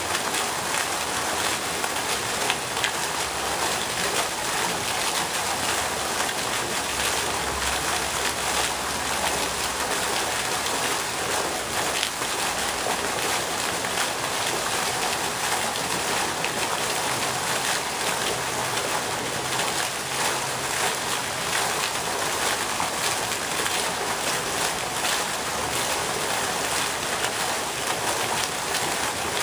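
Pond fountain's vertical water jet falling back onto the pond surface, a steady, unbroken splashing.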